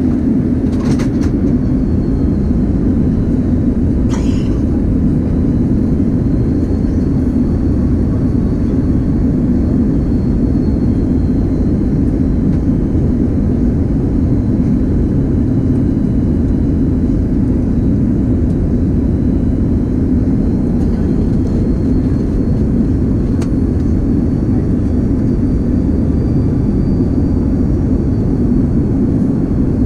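Steady rumble and rush of an Airbus A330-200 in flight, heard from inside the passenger cabin: engine and airflow noise holding level throughout.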